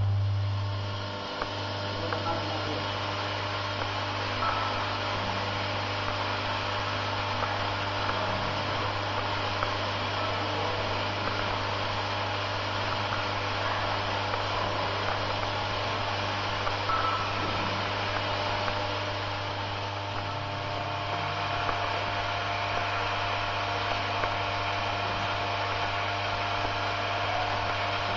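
Vibratory bowl feeder running: a steady low electromagnetic hum from its vibrating drive, under a continuous fine rattle and clicking of small plastic medical-device parts shuffling along the spiral track. The hum drops a little about a second in.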